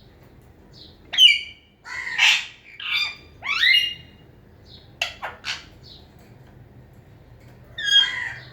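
Parrot squawking: a run of loud, short calls from about a second in, some sliding upward in pitch, then a pause of about two seconds before one more call near the end.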